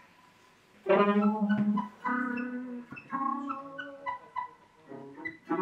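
Guitar played live: held notes of about a second each, starting about a second in, with short high plinking notes between them.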